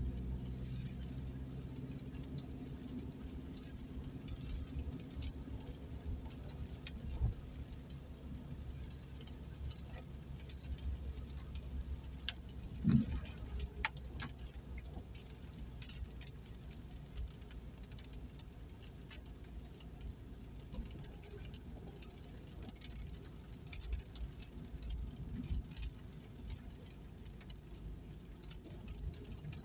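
Inside a car's cabin while driving on a wet road: a steady engine and tyre hum with raindrops tapping irregularly on the windscreen and roof. One louder knock comes about halfway through.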